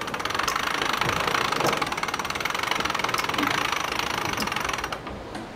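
Sailing winch turning under load, its pawls clicking in a rapid, steady rattle over a dense mechanical background; the clicking stops about five seconds in.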